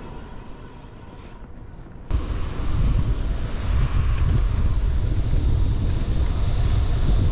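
Wind buffeting the microphone of a bicycle moving downhill at speed, a loud, steady low rumble over road hiss. For about the first two seconds only a quieter road and tyre hiss is heard, then the wind rumble starts suddenly.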